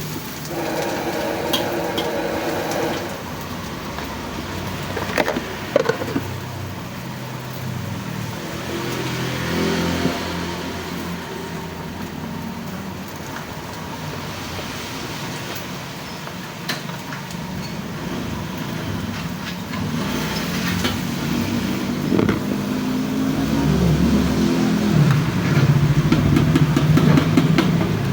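Motor vehicle engines passing, with one revving up and growing louder near the end.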